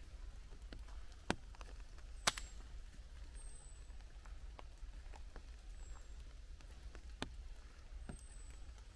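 Rain dripping from the forest canopy: scattered, irregular drops tapping on leaves and the wet ground, with two sharper, louder drops about a second and two seconds in, over a low steady rumble.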